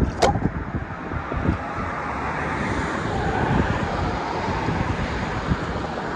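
Wind buffeting the microphone in a steady rumble, with a brief splash of hand-scooped water about a quarter second in.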